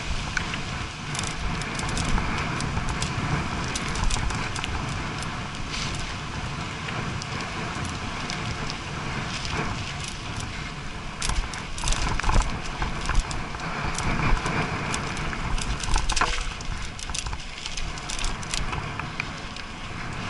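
Mountain bike ridden over a bumpy dirt track, its chain and frame rattling with sharp clicks and knocks over a steady low rumble of tyre and wind noise; the rattling is thickest in the second half.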